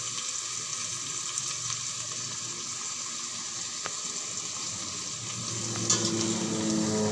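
Chicken pieces, garlic, onion and tomato frying in oil in a stainless steel stock pot: a steady sizzle, with a spatula starting to stir near the end. A low hum grows in over the last second or two.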